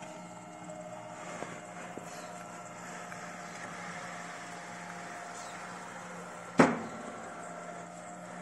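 Small Smartmaq compact edge-banding machine running with a steady hum as an MDF panel is pushed along it past the glue roller and pressure rollers. A single sharp knock about six and a half seconds in.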